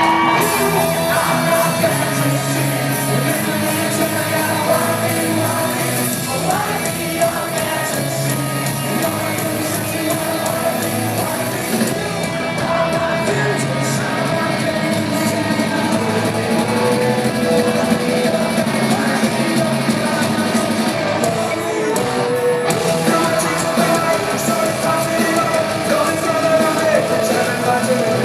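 Live rock band playing, with singing over the music, in a large hall.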